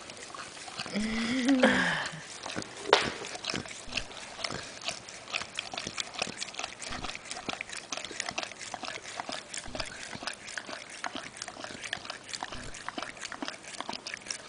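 Bernese mountain dog licking frozen yogurt out of a small cup held to its mouth. Quick wet licks, several a second, start about three seconds in and keep going steadily.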